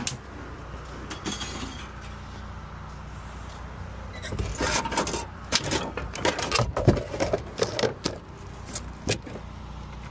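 Wood and metal junk knocking and clattering as it is handled on a wooden trailer deck, with a run of sharp knocks between about four and eight seconds in, over a steady low hum.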